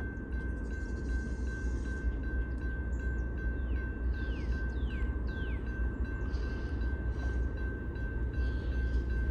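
Freight cars of a CSX manifest train rumbling steadily past a grade crossing, while the crossing bell rings at an even pace. A few short falling squeals come in about four to five seconds in.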